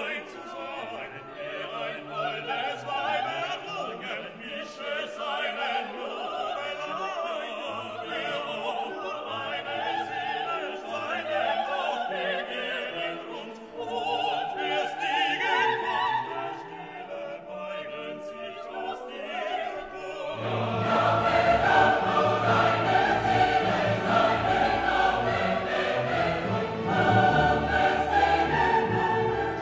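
Classical choral music: a choir singing with orchestral accompaniment, growing fuller and louder about twenty seconds in.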